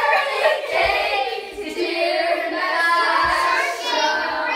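A group of children and women singing a birthday song together.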